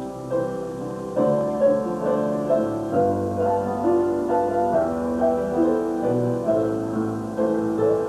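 Piano playing an instrumental passage of a Christmas song: a melody over held chords, with no singing.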